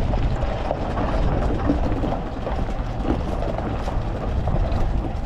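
A vehicle running with a steady low rumble, amid outdoor background noise.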